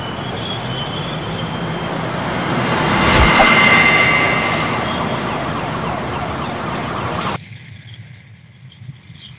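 A loud rushing sound effect that swells to a peak with a few faint high tones ringing over it, then cuts off abruptly about three-quarters of the way through, leaving only a faint low rumble.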